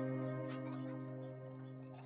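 Background music: a held chord that fades slowly.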